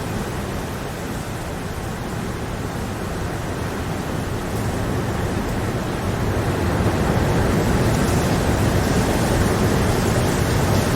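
Steady rain, an even rushing noise that is strongest in the low end and grows a little louder about six seconds in.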